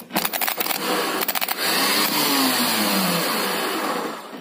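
Car starter motor, out of the car and wired straight to the battery, spinning free on a bench test: a few crackling clicks as the wire is touched to the terminal, then a steady whirring whine for about three seconds that winds down near the end. The motor runs, so the starter works.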